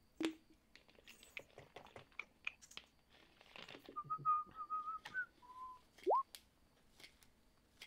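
A person whistling briefly: a held, slightly wavering note, a shorter lower note, then a quick upward slide. Scattered light clicks and taps sound around it.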